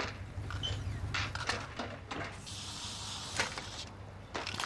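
Steady low electrical hum of a shop, with a few scattered knocks and a rushing hiss lasting about a second midway, as a glass shop door swings open and a man walks in.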